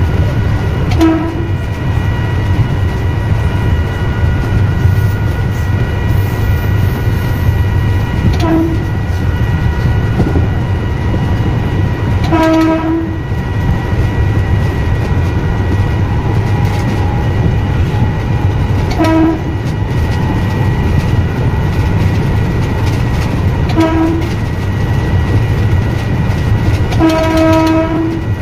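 Train horn sounded six times from the driver's cab: mostly short blasts, with two longer ones about twelve seconds in and near the end. Underneath is the train's steady running noise, with a faint high steady hum.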